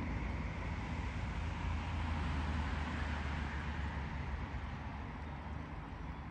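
Steady low rumbling background noise, a little louder about two to three seconds in and easing off near the end.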